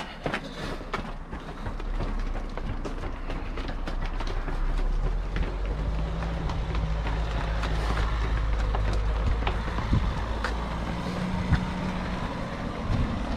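A motorcycle engine idling, a steady low hum that grows louder through the middle and eases off near the end, over the light ticks of running footsteps.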